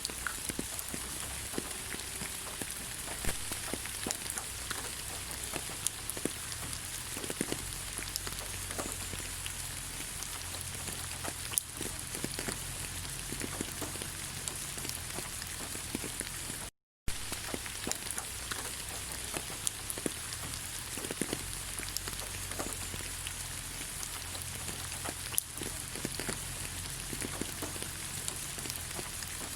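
Steady rain falling on leaves: an even hiss with many individual drops tapping, broken by a brief moment of silence a little over halfway through.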